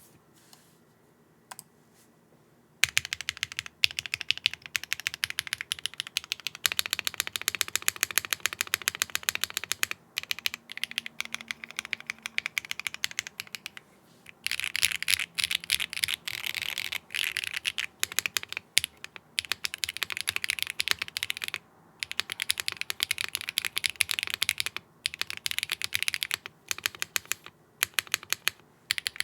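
Custom Mode Tempo mechanical keyboard with HMX Macchiato linear switches, a carbon fibre plate and GMK keycaps being typed on quickly: a dense run of keystroke clacks with a few short pauses. The first three seconds are nearly quiet, with only a couple of single clicks, before the typing starts.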